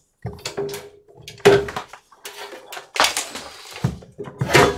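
The metal chassis of a vintage Kikusui OP-31C vacuum tube oscilloscope being slid forward out of its sheet-metal case: scraping of metal on metal with several knocks, the loudest about one and a half, three and four and a half seconds in.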